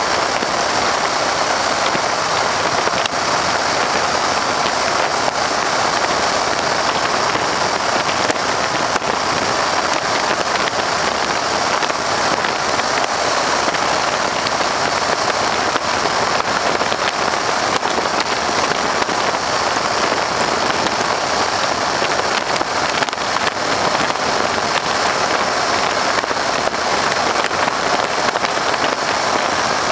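Stearman biplane in flight, heard from the open cockpit: a loud, steady rush of wind mixed with the radial engine's drone, with no let-up.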